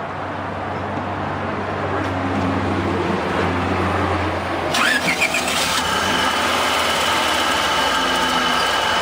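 Car engine started after a fresh oil change: a low steady hum, then about five seconds in it catches with a short rising whine and settles into steady running. In its first seconds it has what the owners hear as a heavy lifter tick.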